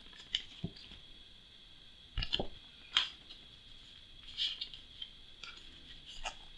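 Printed card map tiles and paper being handled: scattered light taps and rustles, with a duller knock about two seconds in.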